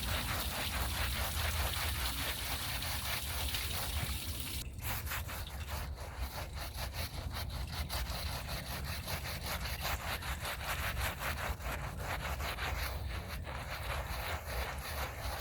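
Hand scrub brush being worked back and forth over a wet rug in quick, even strokes, over a steady low rumble. A hiss cuts off suddenly about five seconds in.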